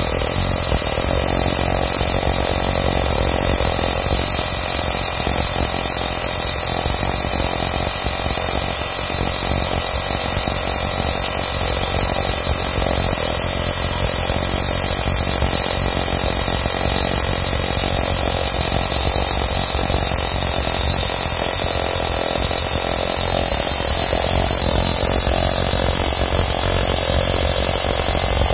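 Spark-gap Tesla coil running steadily: a loud, continuous buzz from the firing spark gap with the crackle of small purple streamers off the toroid.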